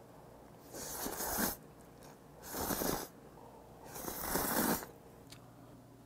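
A man slurping up a mouthful of cream carbonara Buldak stir-fried noodles, three long slurps, each under a second, about a second and a half apart.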